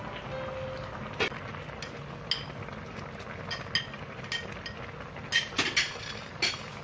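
A pan of fish simmering with a steady low hiss, with about eight sharp clinks of metal cookware scattered through it, several close together near the end.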